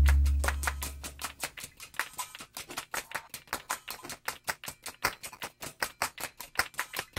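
Rapid, evenly spaced clicking, about six clicks a second, after the last chord of the music fades out in the first second.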